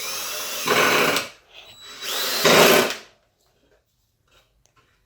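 Drill/driver running in two bursts, each a little over a second long, driving screws into the wooden desk parts. The motor's whine bends in pitch during each burst, and each burst grows louder near its end.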